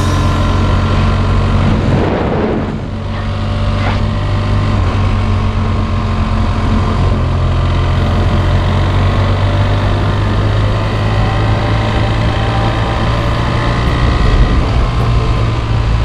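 BMW F800 ST's parallel-twin engine running steadily under way, heard from the bike with road and wind noise. Its sound dips briefly about two seconds in, then carries on steady.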